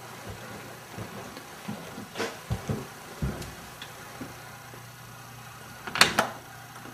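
A few soft, dull thumps and knocks, then a sharp, loud double knock about six seconds in.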